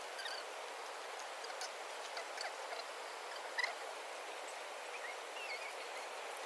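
Steady outdoor background hiss with a few faint short chirps and a small click about three and a half seconds in.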